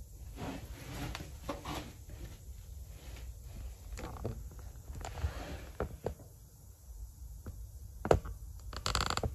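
Scattered handling noises: rustles, clicks and knocks, with one sharp knock about eight seconds in and a short rustling burst just after.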